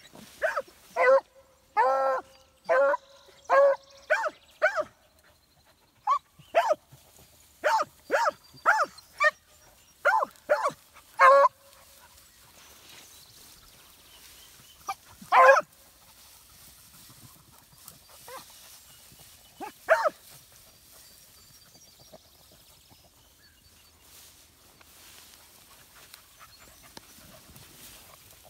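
Rabbit-hunting beagles baying on a scent trail: a quick run of short, pitched barks for the first dozen seconds, one note held a little longer near the start, then two single barks a few seconds apart before they fall quiet.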